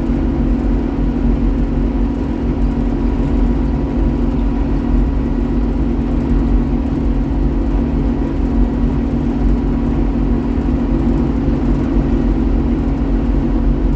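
Combine running steadily while shelling corn: an even engine and machinery drone with a constant low hum.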